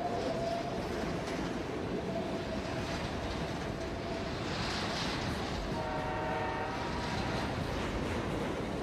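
Diesel freight train running with a steady rumble of engines and rolling wagons, its horn sounding a chord for about a second and a half past the middle.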